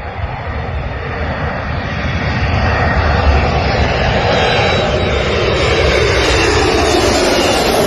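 Airplane engine noise passing close, growing louder over the first few seconds into a loud rush, with a pitch that falls in the second half as it goes by.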